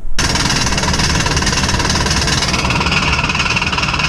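Turbofan jet engine running: a loud, steady rush of noise that starts abruptly, with a whine coming up about two and a half seconds in.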